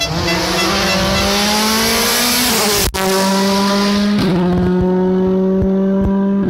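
Rally car engine at high revs, its pitch rising over the first couple of seconds. After a brief break it holds a steady, high, even pitch, with small steps in pitch.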